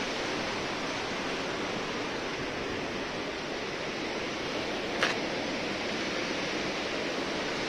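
Steady rush of a waterfall cascading into a narrow gorge below, with a single brief click about five seconds in.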